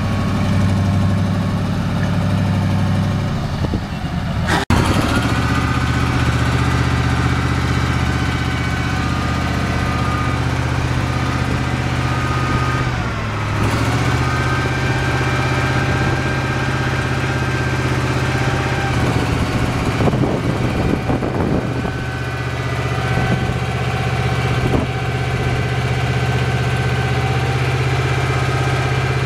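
P&H T150 truck crane's diesel engine running steadily. About four and a half seconds in there is a sharp click and the sound changes, after which the engine runs on with a faint high whine, dips briefly near the middle and turns uneven for a few seconds later on while the boom is up.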